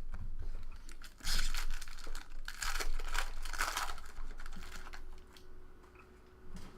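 Crinkling and rustling of trading-card packs and cards being handled, loudest from about one second in to past four seconds, then dying down.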